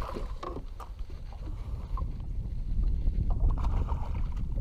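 Steady low rumble of wind on the microphone and water around a small boat, getting a little louder after about three seconds, with small clicks and knocks from a camera and gear being handled.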